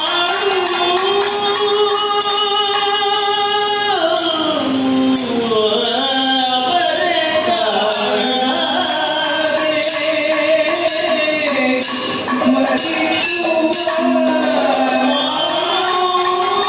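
Kathakali song: a voice holds long notes and slides between pitches, over steady strokes of small hand cymbals and drums.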